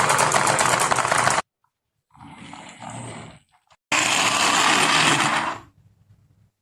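Marbles rolling down a marble run track, a loud, rapid clattering rattle. It cuts off about a second and a half in, comes back quieter for a moment, then loud again at about four seconds for a second and a half.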